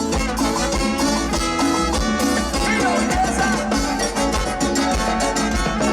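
Live Latin dance band playing an instrumental salsa-style passage with a steady beat, horns and percussion.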